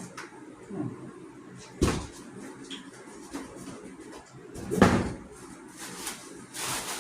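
Packaging being handled and rummaged through while the box is searched for a wrench, with two dull knocks: a sharp one about two seconds in and a louder one about five seconds in.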